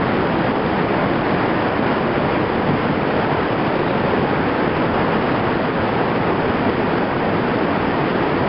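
Iguazu Falls: the steady, loud rush of a huge volume of water plunging over the falls.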